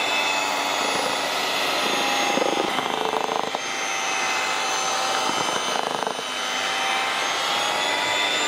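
Electric hand mixer running steadily at speed, its beaters whipping cream in a steel bowl.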